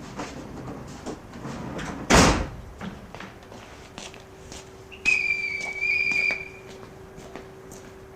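Inside a Series 50 passenger coach, a door shuts with a loud thud about two seconds in. A few seconds later a single high whistle blast is held for about a second and a half.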